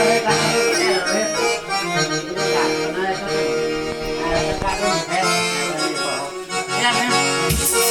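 Instrumental forró passage: an accordion-voiced melody played on an electronic keyboard. A drum beat comes in near the end.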